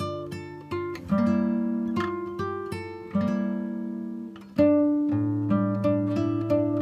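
Background music of plucked acoustic guitar playing notes and chords. Each note rings out and fades, with fresh strong strums about a second, three seconds and four and a half seconds in.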